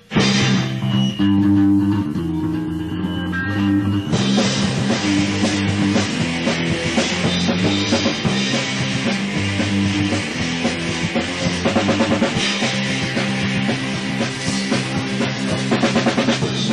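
Instrumental intro of a rock band's demo song, played back from a digitized cassette tape: guitar and bass begin at once, and the sound fills out with drums and cymbals about four seconds in.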